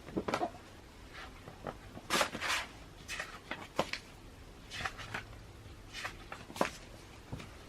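Pages of a hardcover magazine being turned and handled: about a dozen short paper swishes and soft taps, the loudest pair a little over two seconds in.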